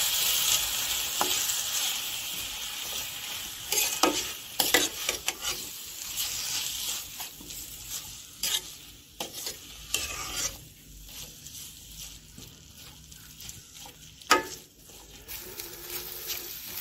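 Eggs and grated vegetables frying in soybean oil in a stainless steel karai, stirred with a metal spatula that scrapes and knocks against the pan at irregular moments. The sizzle is strongest at the start and dies down over the first few seconds. The loudest scrape comes about fourteen seconds in.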